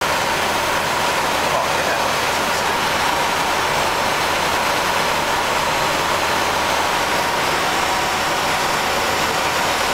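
Steady flight-deck noise of a Boeing 737-300 at cruise altitude: an even rush of air with a faint steady tone running through it.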